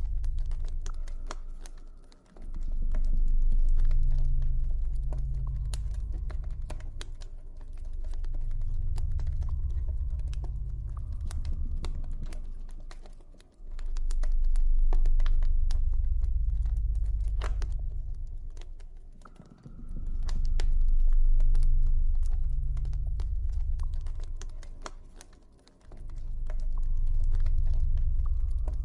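Campfire crackling, a constant scatter of small pops and snaps, over low ambient drone tones that swell and fade every few seconds.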